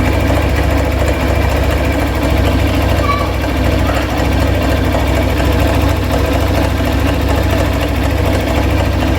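Hero Thriller 160 cc motorcycle's single-cylinder engine idling steadily, with a fast 'tik tik tik tik' ticking from inside the engine. The owner says the noise comes in the first kilometre or two after starting and then stops by itself, and suspects the connector pipe.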